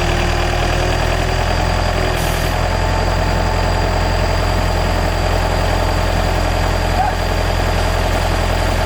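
Large excavator's diesel engine running steadily, a constant low hum with no revving.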